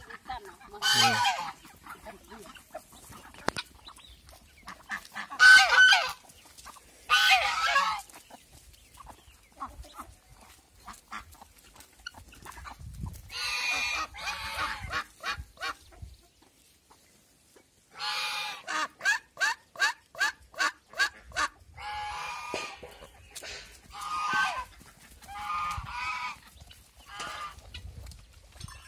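Domestic geese honking in loud, separate calls again and again, with chickens clucking among them. About eighteen seconds in, a rapid run of short calls goes at about five a second for some three seconds.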